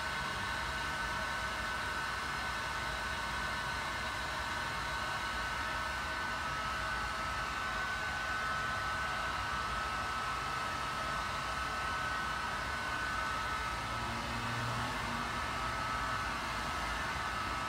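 Steady rush of air from a hotel room's ventilation or air-conditioning system, with a faint high whine that shifts slightly in pitch.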